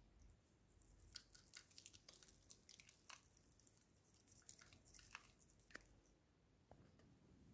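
Faint, quick ticks and rattles of spice being shaken from a plastic shaker over the filling for about five seconds, stopping a little before the end.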